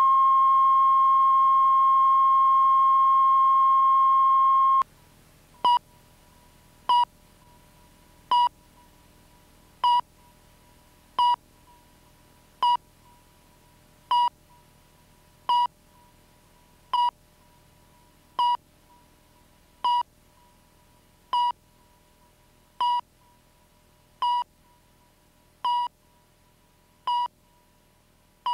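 Steady line-up test tone under colour bars, cutting off suddenly about five seconds in. It is followed by short, evenly spaced countdown-leader beeps at the same pitch, about one every second and a half.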